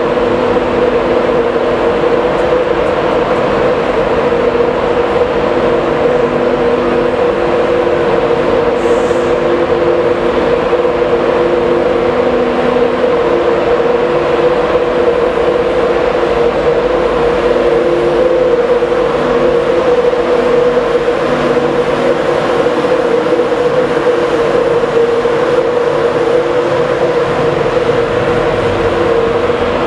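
Class 91 electric locomotive running at the platform: a steady hum with several held tones, the strongest mid-pitched, over an even rushing noise.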